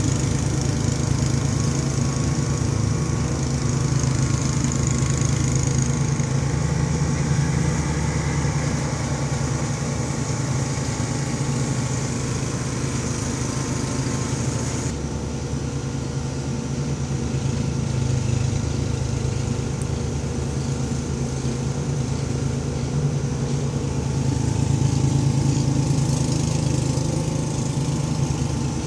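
Tortoiseshell mother cat purring steadily and loudly, close to the microphone, as her kittens nurse.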